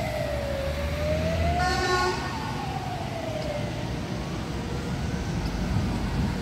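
Fire engine's siren wailing, slowly rising and falling, then fading away as the Scania truck drives off. A short horn blast sounds about two seconds in, over low traffic rumble.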